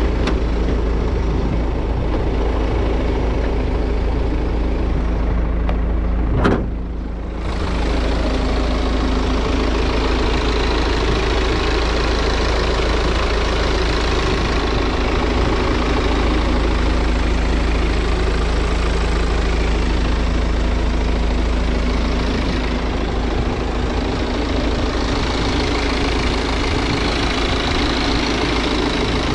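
BMW TwinPower Turbo engine idling steadily, heard up close in the engine bay. One sharp clunk about six and a half seconds in, as the bonnet is raised.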